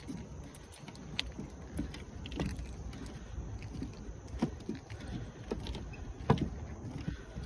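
Footsteps knocking on the wooden plank deck of a pedestrian suspension bridge, irregular thuds every half-second or so, one sharper knock about six seconds in, over a low steady rumble.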